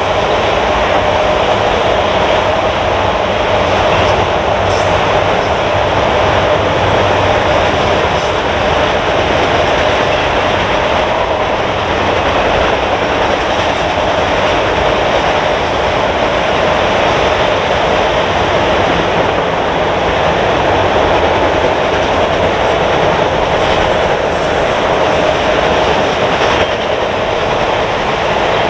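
Freight train of autorack cars rolling past, a loud, steady rush of wheels on rail that carries on without a break.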